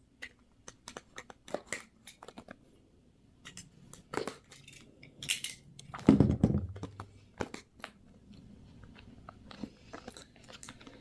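Cardboard box and plastic packaging handled and pried at by hand: irregular clicks, taps and crinkles, with a louder rubbing thump about six seconds in. The packaging is stuck and hard to open.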